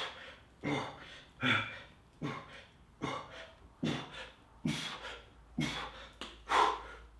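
A man breathing hard in rhythm with exercise reps, a forceful breath about every three-quarters of a second.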